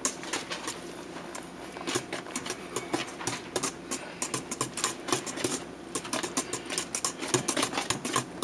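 Wire whisk beating egg yolks and sugar in a metal mixing bowl: a quick, uneven run of light clicks as the wires strike the side of the bowl.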